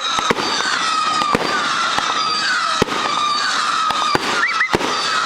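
Fireworks going off: a dense crackling with sharp bangs every half second or so, and whistling tones that slide slowly down in pitch.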